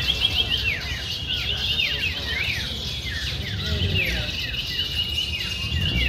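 Many caged contest songbirds singing at once, a dense overlap of repeated downward-sliding whistles and quick trills, over a low background rumble.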